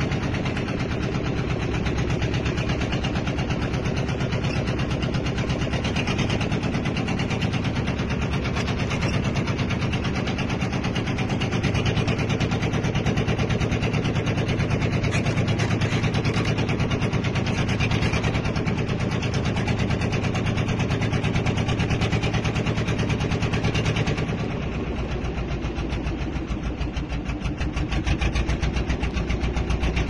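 Boat engine running steadily with a fast, even pulsing; the level dips slightly about 24 seconds in and comes back up near the end.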